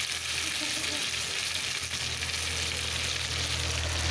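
Samosas deep-frying in hot oil in an iron kadhai: a steady sizzling hiss as they are turned slowly with a slotted spoon, with a low steady hum underneath. The samosas are nearly cooked and browning.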